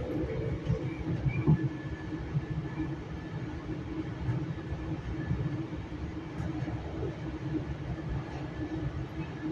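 Inside a Metrolink commuter train coach in motion: steady rumble of the car riding on the rails with a steady hum, and one louder knock about a second and a half in.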